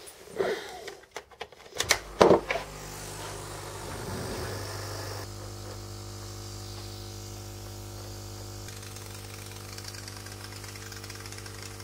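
Electric aquarium air pump running with a steady buzzing hum, driving a mist-coolant spray nozzle whose air hisses over it. It starts about two seconds in, just after a few loud knocks of handling. The pump is small for the job, and the spray comes out dripping rather than as a fine mist.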